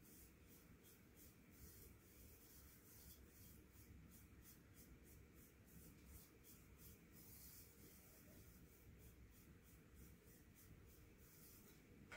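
White bamboo tea whisk (chasen) being worked through matcha in a tea bowl: a faint, even scraping rhythm of a few strokes a second.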